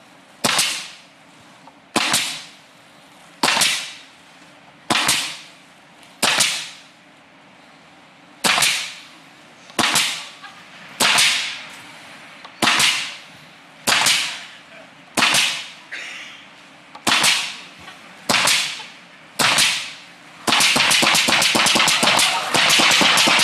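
Pneumatic nail gun firing single shots at an uneven pace, roughly one every second or two, about fourteen in all. Where the nail strip has a gap the gun still fires its air and makes the same bang without driving a nail. About 20 seconds in, a dense, loud, continuous rattle of rapid sharp strokes takes over.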